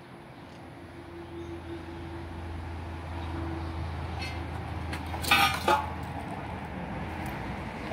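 A low, steady rumble slowly grows louder, with two short sharp clatters a little over five seconds in.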